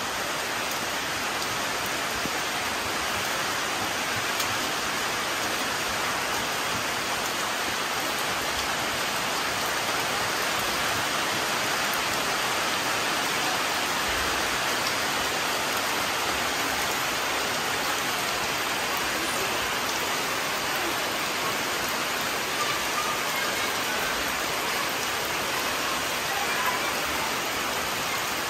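Steady rain falling on tree leaves and the ground, an even, constant hiss of drops.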